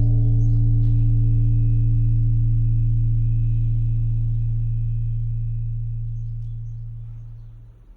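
A Japanese temple bell (bonshō), struck once by its automatic striker, ringing on in a deep, steady hum as it decays. The low hum dominates over fainter higher tones and dies away near the end.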